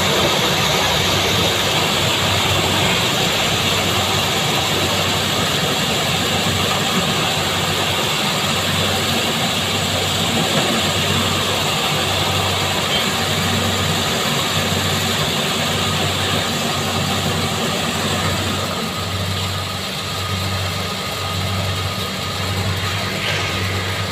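Kubota combine harvester running steadily while it cuts standing corn, its engine noise with an even low pulsing throb.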